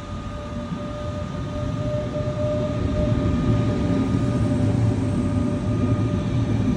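A train approaching along the platform: its low rumble grows steadily louder, over a faint, steady, high tone.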